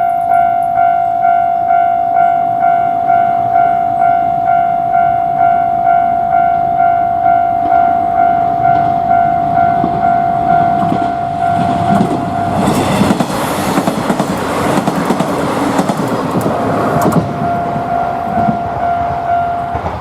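Japanese level-crossing warning bell starting suddenly and ringing its electronic "kan-kan" tone about twice a second. About twelve seconds in, a train runs over the crossing with loud wheel and track noise that drowns the bell for several seconds. The bell is heard again near the end.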